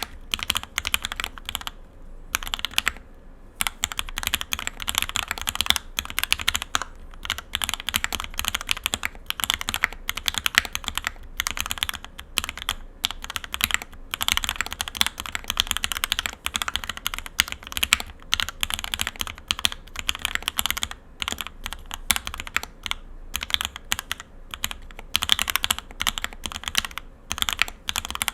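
Bear65 mechanical keyboard with JTK John Wick keycaps on Op Black 80 g switches, typed on continuously: a fast, steady stream of keystroke clacks with a brief pause about two to three seconds in.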